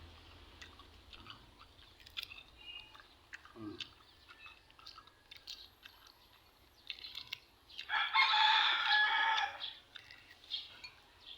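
A rooster crowing once, about eight seconds in, the loudest sound here, over faint scattered clicks and ticks.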